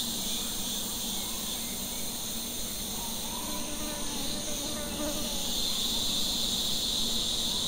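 Steady high-pitched chorus of insects, with faint buzzing from small stingless bees (Trigona apicalis) flying in front of their nest entrance, wavering in pitch around the middle.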